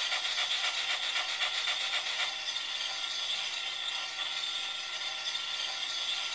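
MTH Climax model logging locomotive's onboard sound system, standing still, giving a steady rasping hiss of steam.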